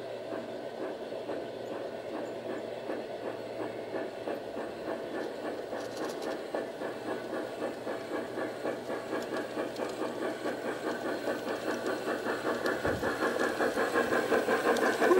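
LGB G-scale model steam locomotive and its freight wagons running along garden track, a regular beat of about three a second growing steadily louder as the train approaches.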